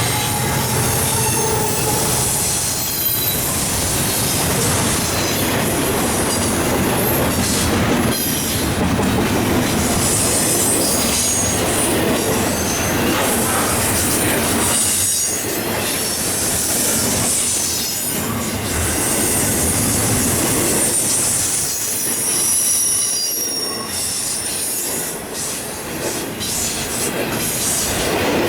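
Intermodal freight cars rolling past at track speed, with steady wheel-and-rail noise and clatter. Thin high-pitched wheel squeal comes and goes, loudest about ten seconds in and again a little past twenty seconds.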